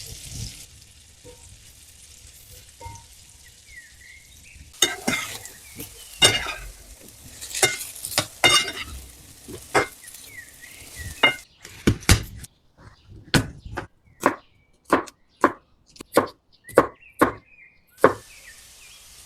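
Kitchen utensil knocks and scrapes while food is prepared. A faint steady hiss at first, then sharp strikes from about five seconds in, irregular at first and then settling into an even run of about one and a half per second before stopping near the end.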